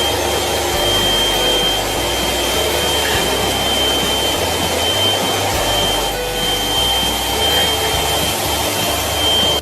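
Loud, steady whooshing noise of a running motor with a thin, high whine, like a vacuum cleaner or hair dryer; it cuts off suddenly near the end.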